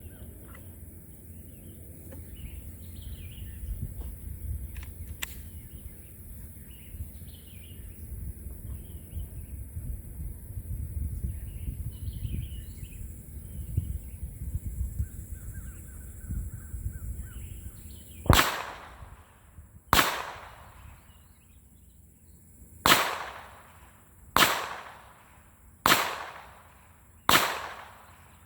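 Glock 44 .22 LR pistol firing six shots of Federal 40-grain ammunition, unevenly spaced about one and a half to three seconds apart, each crack trailing off in an echo. Before the first shot, some eighteen seconds in, there is only a low rumble with birds chirping.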